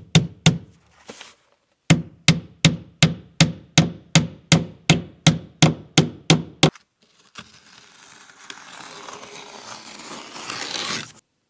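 Hammer driving cap nails, struck in steady runs of about three blows a second: a short run that stops half a second in, then about thirteen more blows. After that comes a rushing noise that swells and then cuts off suddenly.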